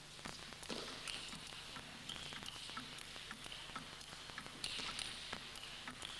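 Table tennis rally: a celluloid ball clicking sharply off bats and table in a quick run of hits, several each second.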